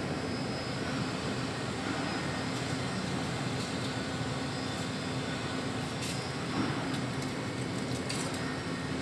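Steady mechanical hum and hiss of room air-handling, with a constant low drone. Faint crinkling of aluminium foil near the end.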